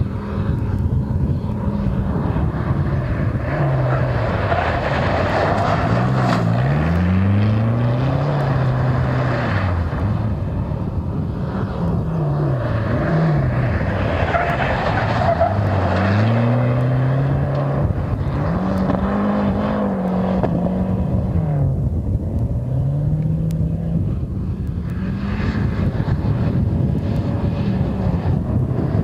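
A 350 hp Mitsubishi Starion rally car's engine revving hard, its pitch climbing and dropping again and again through gear changes and passes, over the rush of tyres sliding and spraying sand.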